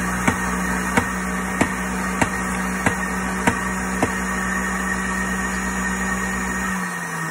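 Electric centrifugal juicer motor running steadily at high speed while juicing cucumber, with a regular sharp tick about every half-second for the first few seconds. Near the end the motor winds down, its hum falling in pitch.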